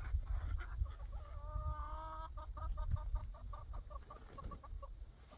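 Chicken calling: one drawn-out note about a second in, then a quick run of short clucks, about five a second, with a low rumble underneath.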